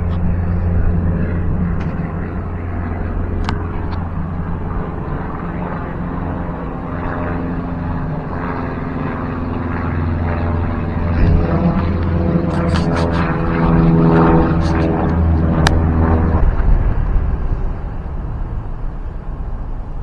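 Light propeller aeroplane passing overhead: a steady engine drone that cuts off suddenly about sixteen seconds in.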